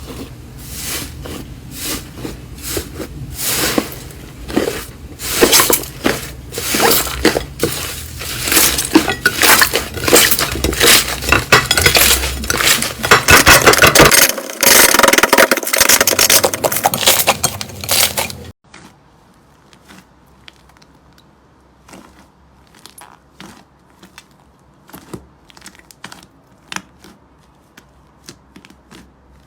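Slime being worked by hand, giving a dense run of crackling clicks and pops. About two-thirds of the way in it cuts off abruptly, leaving much fainter, sparser clicks.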